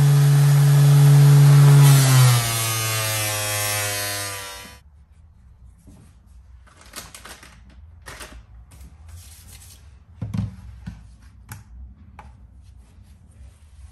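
A gas melting furnace's burner running with a loud, steady hum and hiss, then sinking in pitch and cutting off about five seconds in as it is shut down. Faint clicks and knocks of handling follow.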